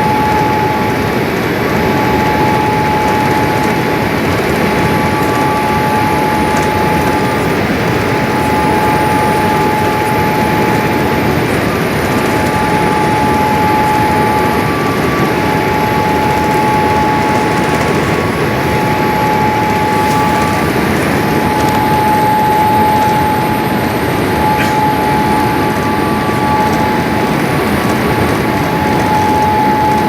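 Cabin noise aboard a Boeing 787-8 Dreamliner: a steady rush of engine and airflow noise with a thin steady whine running through it that drops out briefly a few times.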